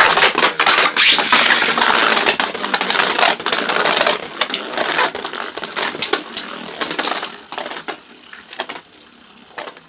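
Two Beyblade Burst Turbo tops, Vise Leopard and Revive Phoenix, spinning and clashing in a plastic Rail Rush stadium: a dense scraping rattle with many sharp hits. After about seven seconds it dies down to occasional clicks as the tops settle into spinning.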